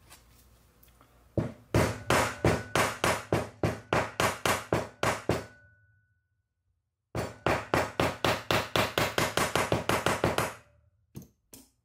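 A hammer tapping a new water pump seal into its bore in a Yamaha YZ450 engine. The light taps come quickly and evenly, about four a second, in two runs with a pause between. Two single ticks follow near the end.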